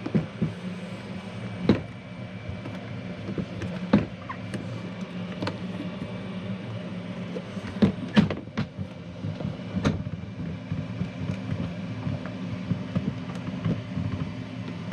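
Scattered knocks and clicks of a teardrop camper's newly replaced side window being worked shut to test whether it now closes, over a steady low hum.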